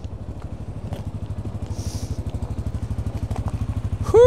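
ATV engine idling with a steady low pulse, growing gradually louder.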